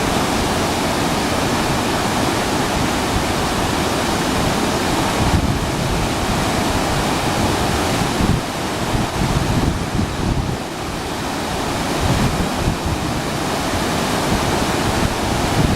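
Tedori River running high and muddy after typhoon rain: a steady, loud rush of floodwater, with wind buffeting the microphone.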